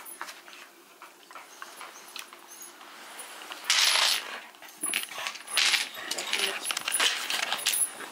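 Metal leash chain and collar jingling as a Shiba Inu moves about, with a few louder short bursts of noise, the loudest about four seconds in.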